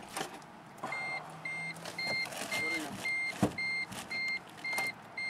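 Warning chime in a 1988 Toyota Camry beeping rapidly, about two and a half beeps a second, as the key is tried on a battery too flat to crank the engine. Two sharp clicks come about three and a half and four seconds in.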